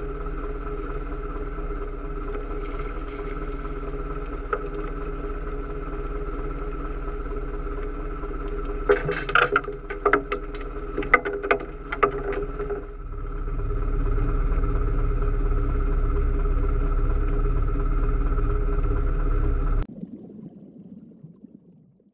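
Boat engine idling steadily, with a cluster of sharp clattering knocks about nine to twelve seconds in. A louder low rumble builds from about thirteen seconds, then the sound cuts off abruptly a couple of seconds before the end, leaving a faint rumble that fades away.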